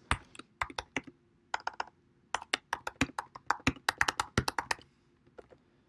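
Typing on a computer keyboard: an irregular run of keystroke clicks with short pauses, stopping about five seconds in.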